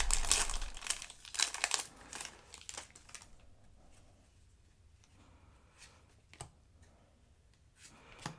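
Foil wrapper of a Yu-Gi-Oh! booster pack crinkling and tearing as it is ripped open. The noise lasts about the first three seconds, then dies down to a few faint ticks.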